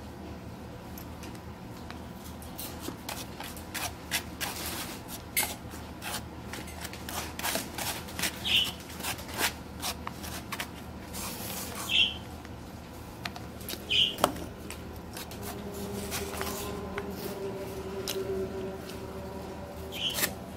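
Plastic fork scraping and tapping in a styrofoam takeout container while scooping up rice, with many short clicks and scrapes and a few brief high squeaks. A low steady hum comes in past the middle.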